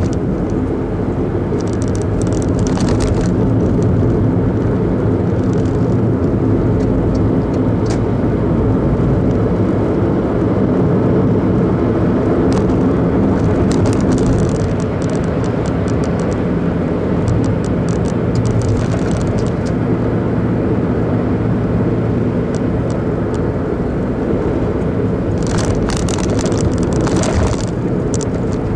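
A car's engine running and its tyres on the road while driving, a steady hum and road noise throughout. Short spells of faint high ticking or rattling come about two seconds in and again near the end.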